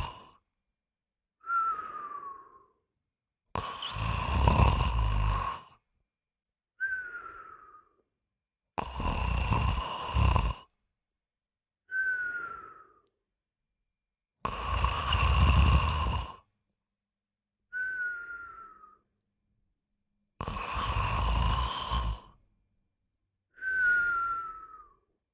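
A person snoring in a slow, regular cycle: a loud snore lasting about two seconds, then a shorter, quieter breath with a whistle that falls in pitch, repeating about every five and a half seconds.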